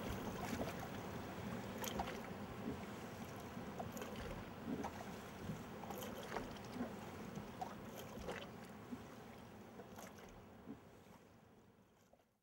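Sea water lapping and splashing, with scattered small knocks. It fades out gradually to silence near the end.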